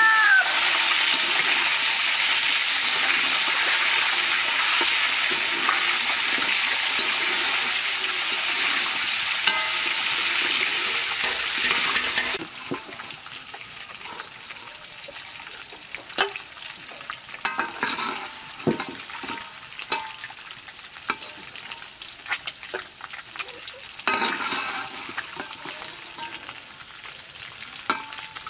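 Food frying in hot oil in a cooking pot, a loud steady sizzle that drops away suddenly about halfway through. The quieter second half has scattered scrapes and knocks of a spoon stirring against the pot.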